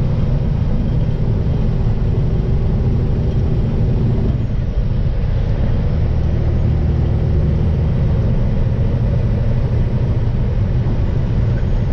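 Semi-truck engine and road noise heard from inside the cab while driving: a steady low drone, whose engine note changes once about four and a half seconds in.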